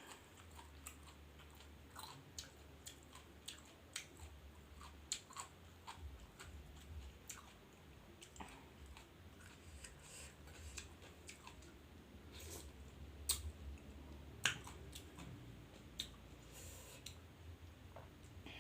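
A person chewing and biting food up close: irregular wet clicks and crunches, a few sharper ones about 13 and 14.5 seconds in.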